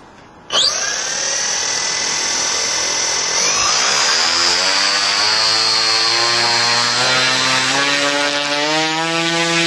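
Turnigy CA 120-70 brushless outrunner motor spinning a 30x10 Xoar wooden propeller at about half throttle. It starts abruptly about half a second in and runs loud, with a high electric whine over the propeller's drone, whose pitch climbs slowly as the prop spins up.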